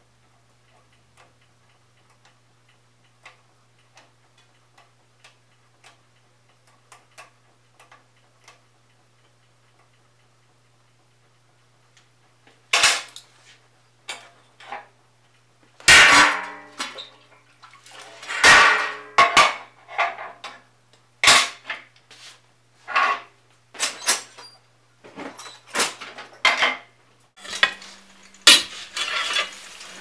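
Steel glassworking tools clanking. For the first dozen seconds there are only faint scattered ticks. Then comes a run of loud metal clangs and clatters as a flat steel plate and a long-handled ladle are handled. A low steady hum runs underneath and stops near the end.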